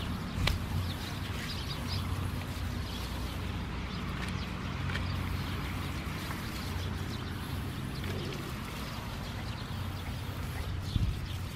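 Shiba Inu puppies scampering and tussling through dry grass, with rustling and scattered crackles from the grass and the plastic seedling pot that one carries in its mouth, and a louder click near the end, over a steady low hum.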